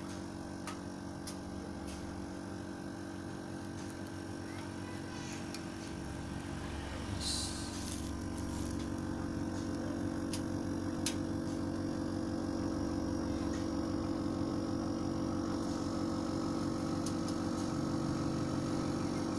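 Steady machine hum made of several even tones, growing slightly louder partway through, with a few faint clicks.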